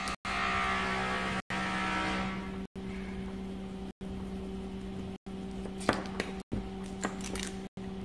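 Coloured pencil and paper being handled on a tabletop: a scratchy rubbing and rustle for about the first two seconds, then a few light taps and clicks later on, over a steady low electrical hum.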